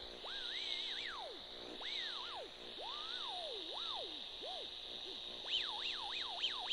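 Circuit-bent radio sounding through its speaker: a single electronic whistle tone that swoops up and down in pitch, several slow sweeps and then a faster warble near the end, over a steady hiss.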